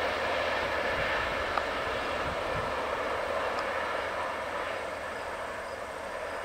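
VIA Rail passenger train rolling away down the track, a steady wheel-on-rail noise that slowly fades as the train recedes.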